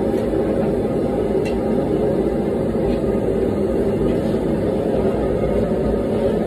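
Gas forge burner running with a steady, even rushing noise.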